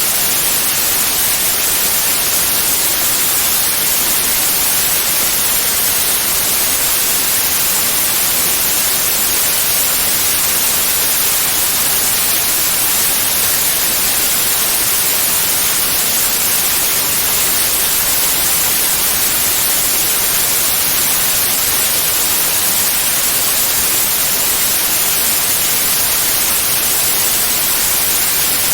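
Continuous synthetic white noise: a steady, even hiss, brightest in the high frequencies, that does not change in level.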